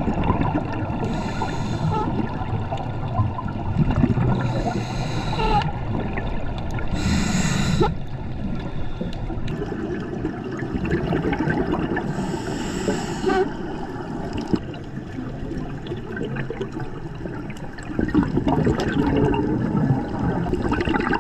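Scuba regulator breathing underwater, heard through the camera housing: a hiss every few seconds as the diver breathes through the regulator, between rumbling, gurgling exhaled bubbles.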